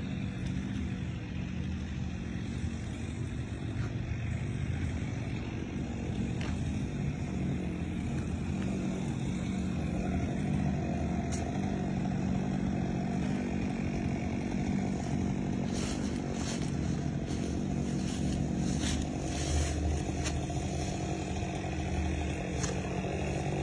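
Chainsaw engine running steadily, with scattered clicks and knocks in the second half.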